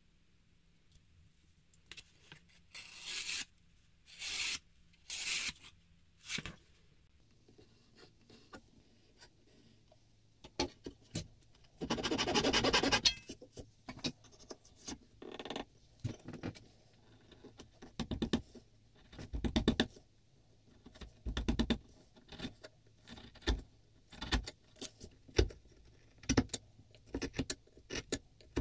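A narrow chisel pares and scrapes into beech wood in short separate strokes. Three strokes come a few seconds in, one longer cut about twelve seconds in, then a run of quick short scrapes.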